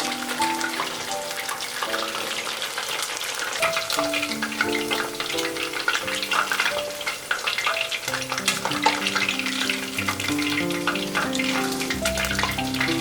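Battered chicken frying in hot oil: a steady, dense crackle of small pops.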